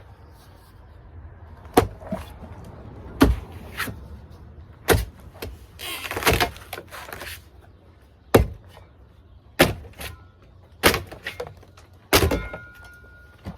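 About eight heavy hand-tool blows strike a fiberglass spa shell, roughly one every second and a half. Around the middle one blow gives a longer cracking, splintering sound as the shell breaks up.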